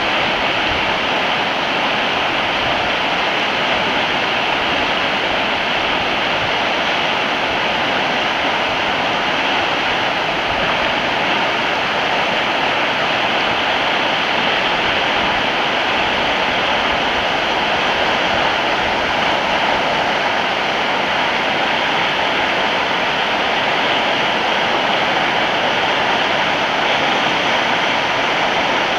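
River rapids rushing, a steady, loud wash of whitewater.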